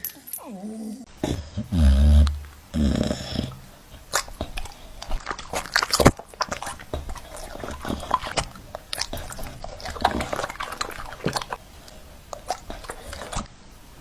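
A dog making short vocal sounds in the first few seconds, followed by a run of scattered scuffling clicks and knocks.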